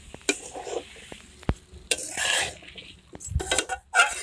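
A metal spatula scraping and knocking against a steel kadai as chicken pieces are stirred in hot oil and masala, with sizzling from the frying. The sizzle swells about halfway through, and the loudest knock of the spatula comes near the end.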